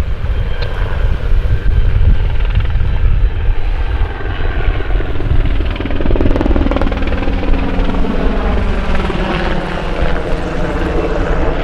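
Coast Guard search helicopter flying over, its rotor blades thudding steadily with an engine whine that drops in pitch in the second half as it passes.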